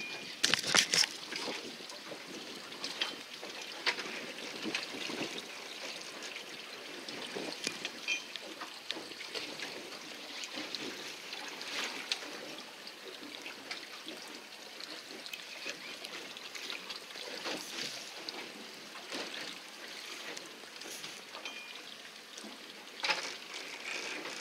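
Sea water lapping and splashing against the hull of a drifting fishing boat, with scattered small knocks and clicks throughout.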